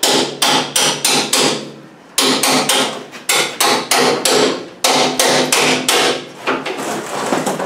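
Hammer blows on a chisel splitting the seam of a Land Rover Defender's aluminium seat-box panel. The strikes come quickly, about four a second, each with a short ringing note, and pause briefly about two seconds in.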